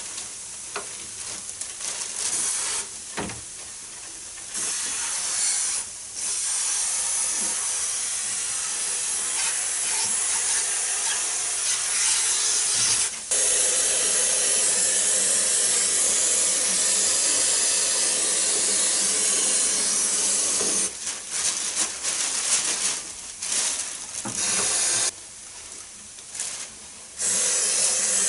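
Cleaning liquid being sprayed, a steady hiss that runs in long spells with a few brief pauses and becomes short stop-start bursts near the end.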